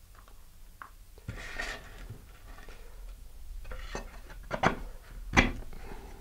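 Handling noise as a fiberglass fin is fitted into its slot in a fiberglass rocket body tube: soft rubbing and scraping with a few light clicks and knocks, the sharpest one about five seconds in.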